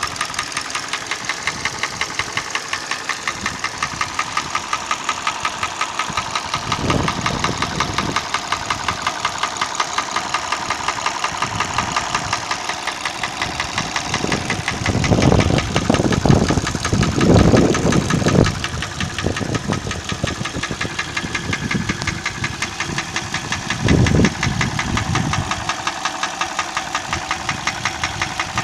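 Hyundai ix35 petrol engine running with a fast, even knock in it, its cause unknown to the owner. A few deeper swells of sound rise over it, once early on, several times in the middle and once near the end.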